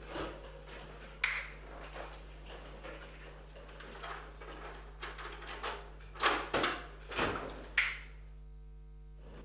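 Irregular knocks and clunks over a steady low hum, with a cluster of the loudest knocks about six to eight seconds in.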